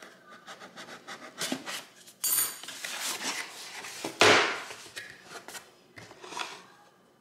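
Cardboard packaging being unpacked: scissors scraping and cutting along the box's seal, then cardboard rubbing and sliding as an inner box is drawn out and opened. One loud knock just after four seconds in stands out from the handling.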